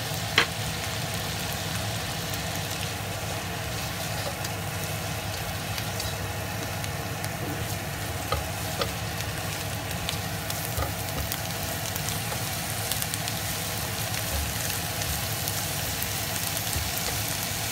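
Giant shrimp frying in oil with garlic and parsley in a nonstick wok: a steady sizzle. A few sharp clicks break through it, the loudest just after the start.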